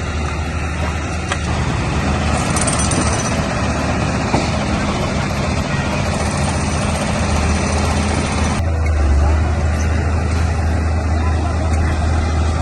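Crawler bulldozer's diesel engine running steadily with a deep low rumble, working heavy machinery on a construction site. About two-thirds of the way through the sound changes abruptly and the low rumble grows stronger.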